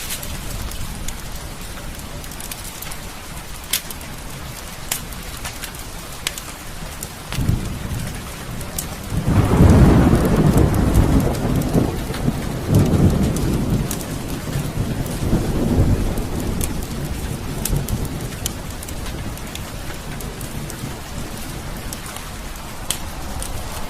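Steady heavy rain, with a roll of thunder that builds about seven seconds in, peaks a couple of seconds later and rumbles on in waves for several seconds before fading. Scattered sharp clicks sound over the rain throughout.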